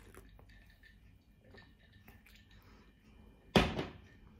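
Faint small clicks in a quiet small room, then a single loud thump about three and a half seconds in.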